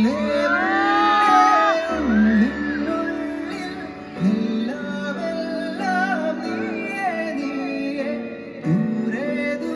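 A song: a solo singing voice holding long, wavering notes over instrumental backing.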